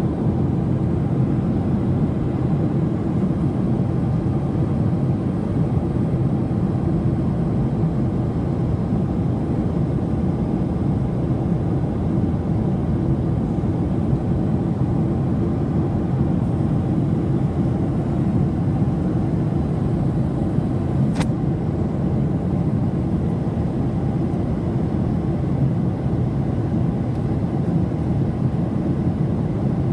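Steady cabin noise of a jet airliner in flight, heard from inside at a window seat: an even low rush of engines and air streaming past the fuselage. A single faint click comes about two-thirds of the way through.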